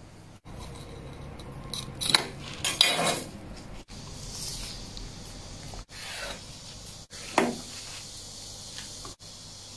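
Food-prep handling on a cutting board: a knife and gloved hands working raw squid, with rubbing and scraping and a few sharp knocks, in short separate bits cut apart by brief silences.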